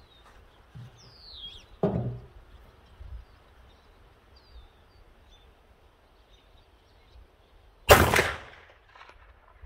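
A single 9mm pistol shot from a Polymer80-framed Glock 19, a sharp crack about eight seconds in with a short ringing tail and a faint echo about a second later.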